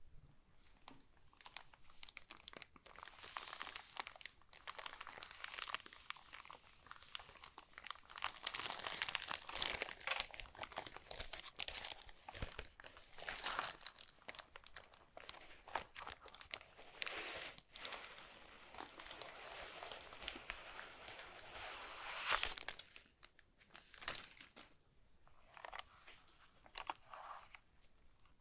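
Packaging crinkling and rustling as it is handled and unwrapped by hand, with dense crackles through most of the stretch. The loudest crinkle comes about three quarters of the way in, and it thins to scattered rustles near the end.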